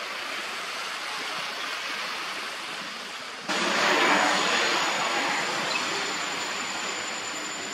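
Steady rushing outdoor background noise. About three and a half seconds in it suddenly gets louder, and a thin, steady high whine sits over it from then on.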